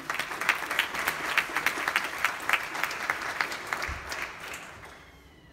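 Audience applauding, with a few sharp nearby claps standing out. The applause dies away over the last second or so.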